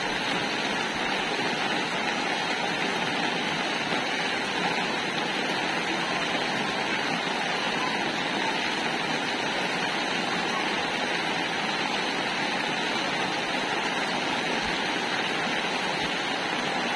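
Heavy monsoon rain pouring down steadily, an even, unbroken hiss of downpour.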